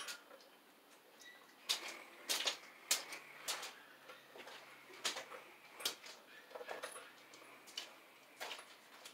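Faint footsteps and light knocks of a person moving about off camera, a click or knock every half second to second or so, over a faint low steady hum.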